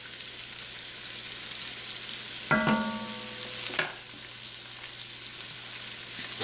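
Flour-dredged pork cubes sizzling as they brown in hot bacon fat in an enameled cast-iron Dutch oven, stirred with a wooden spoon. About two and a half seconds in comes a ringing knock that fades over about a second, and a sharp click follows a second later.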